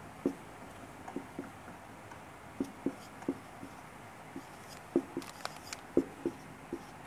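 Marker pen writing Arabic script on a whiteboard: a run of short, irregular taps as each stroke and dot goes down, with a few brief higher scratches just after five seconds.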